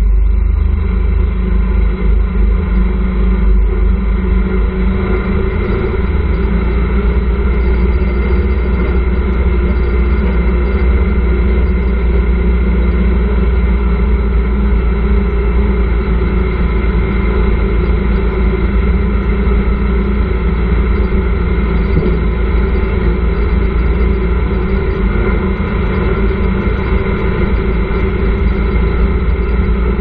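Motorcycle engine of a tricycle (motorcycle with sidecar) running steadily under way, its engine note holding an even pitch over a heavy low hum.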